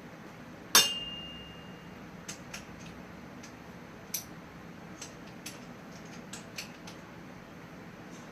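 Metal tools and BMX bike parts clinking during hand assembly: one sharp clank about a second in that rings briefly, followed by a string of lighter taps and clicks.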